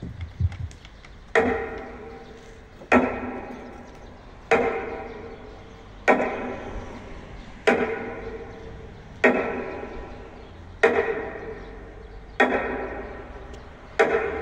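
Slow, evenly spaced metronome beats played over loudspeakers for a minute of silence, about one every second and a half, each a sharp knock with a ringing tail that fades before the next.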